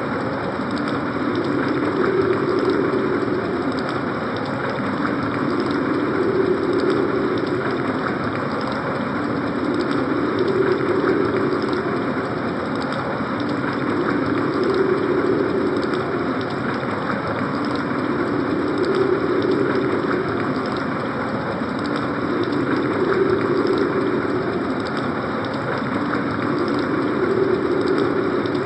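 Synthesized winter-storm wind effect played on a Casio CT-X5000 keyboard: a steady rushing noise with a lower tone that swells and eases about every four seconds.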